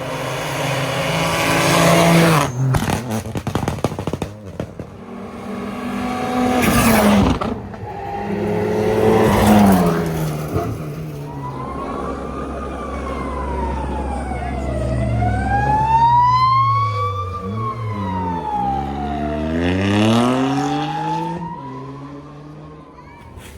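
Rally car engines on a stage, revving hard and changing gear, with sharp cracks and bangs in the first few seconds. Later the engine note climbs and drops several times as a car accelerates and brakes through the gears.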